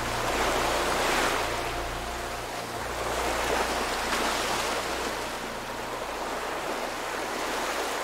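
Ocean surf breaking and washing up a sandy beach, a steady rush that swells twice as waves come in.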